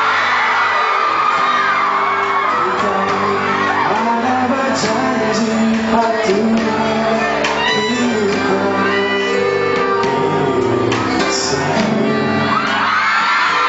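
Live pop ballad: backing music with held instrument notes and a singer's voice, with the audience shouting and whooping along in a large hall.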